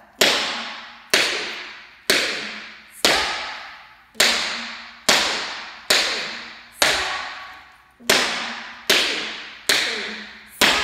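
Tap shoe toe taps on a wooden floor, about one a second and slightly uneven, each sharp click followed by a long fading ring.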